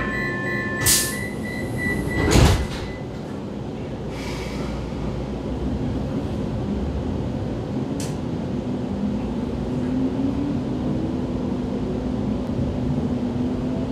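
Vienna U-Bahn train at a station: a steady door warning tone sounds, then the sliding doors shut with a loud thud about two and a half seconds in. After that the train pulls away, its traction motors starting a rising whine under a steady rumble.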